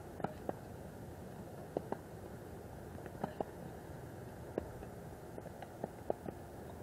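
Tennis balls struck by rackets and bouncing on hard courts: about a dozen short, sharp pops at uneven intervals over a steady background hiss.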